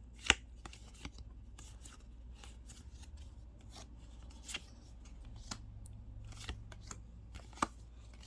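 Magic: The Gathering cards being handled and slid one past another, giving a scatter of light clicks and snaps; the sharpest snap comes just after the start.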